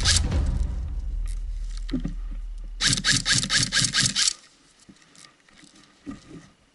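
Airsoft electric rifle firing a rapid burst of about nine evenly spaced shots, each a sharp mechanical clack, about three seconds in. It follows the end of a similar burst at the very start.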